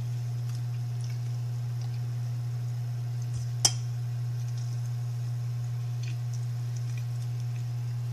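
Faint sounds of a person eating rice and fish by hand, small mouth and bowl noises, over a steady low hum, with one sharp click a little past the middle.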